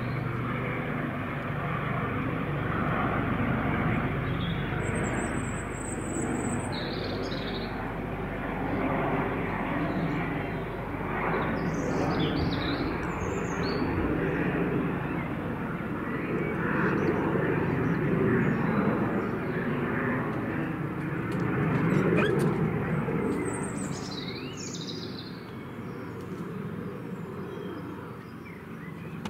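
Airbus H145 twin-turbine helicopter flying past on approach to land, with a steady rotor and engine sound that grows fainter over the last few seconds. Birds chirp now and then above it.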